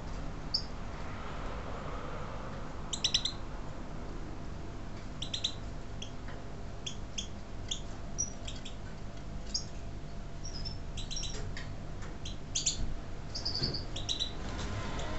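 European goldfinches of the large 'major' race giving short, high chirping calls, scattered and often in quick little clusters, over a steady low hum.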